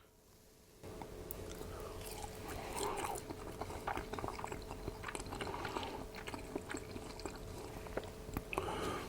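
Close-miked chewing and wet mouth sounds of someone eating a fried weenie dipped in apple butter, with many small clicks and smacks starting about a second in.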